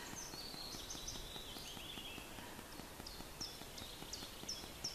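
Light breeze through pine treetops, a faint steady hiss, with small birds singing over it: scattered short high chirps, then near the end a run of about five quick, falling notes.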